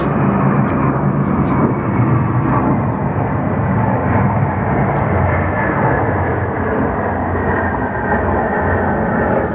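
Steady, loud drone of heavy engines, with a low hum that holds its pitch throughout.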